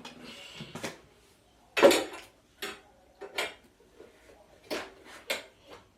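Hard plastic animatronic parts knocking and clacking as they are handled, a handful of separate knocks with the loudest about two seconds in.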